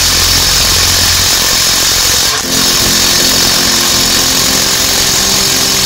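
Meltank cordless impact wrench hammering continuously on a bolt set to about 300 Nm (30 kg·m), with a brief break in the hammering about two and a half seconds in. The tool cannot manage that torque.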